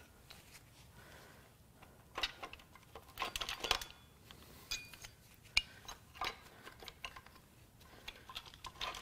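Metal clinks and light rattles from BMW N26 VANOS cam phaser gears and timing chain as they are worked off the camshafts by hand. The clicks are irregular and start about two seconds in, a few of them with a short metallic ring.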